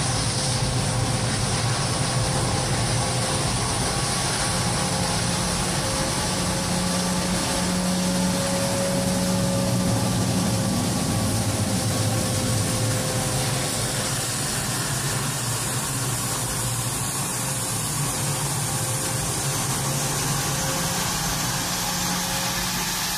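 Twin-engine business jet's rear-mounted turbofans running steadily as it taxis: a constant rush of engine noise with a thin, steady whine.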